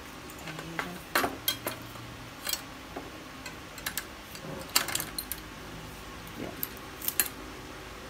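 Light metallic clicks and clinks, in irregular bunches, as a bicycle front wheel with a disc-brake rotor is fitted into the front fork and its axle knocks into the dropouts.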